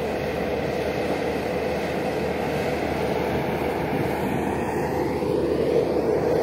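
Steady diesel engine drone of an Escorts single-drum soil compactor roller driving over graded earth fill, with a motor grader running behind it.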